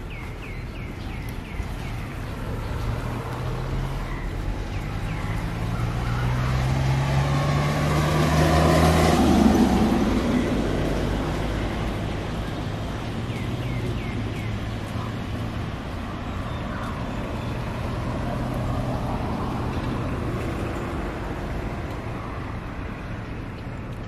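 A motor vehicle passing by. Its engine note rises in pitch and grows louder to a peak about nine seconds in, then fades away. A few faint bird chirps come near the start and near the end.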